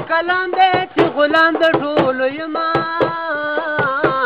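A man singing in a high voice, holding long, ornamented notes that waver and bend, with sharp percussive beats struck alongside the singing.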